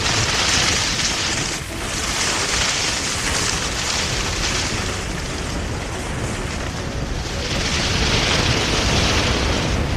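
Wind buffeting the microphone: a steady rushing noise with a heavy low rumble, swelling louder near the end.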